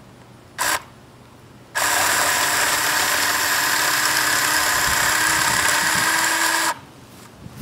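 Ryobi CS1800 18-volt battery-powered chainsaw: a brief blip of the trigger, then the motor and chain run steadily for about five seconds and stop abruptly.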